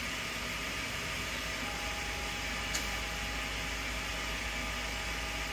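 3D printer's cooling fans running with a steady hiss. A thin steady whine comes in under it about two seconds in, and there is one short click near the three-second mark.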